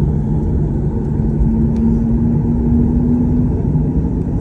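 Jet airliner's engines and the rumble of the plane heard from inside the passenger cabin during takeoff. The rumble is loud and steady, and a low hum rises slightly in pitch through the middle.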